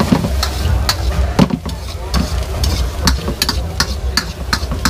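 Metal spatula and ladle clanging and scraping against a steel wok as vegetables are stir-fried over a frying sizzle. The sharp clinks come about two a second and grow more frequent in the second half.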